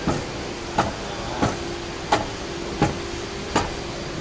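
Steering rack of a Toyota Land Cruiser Prado 150 knocking as the steering is swung back and forth with the engine off: sharp knocks about every 0.7 s over a steady hum. The mechanic takes this knock on a switched-off car as normal, within limits, not a fault.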